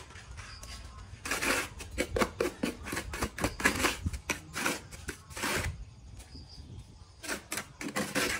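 Quick, irregular clicks and knocks, several a second, with a few longer scraping noises among them.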